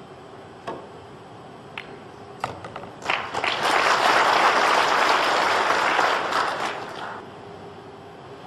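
Audience applause: a few single sharp claps, then clapping that swells about three seconds in, holds for a few seconds and dies away.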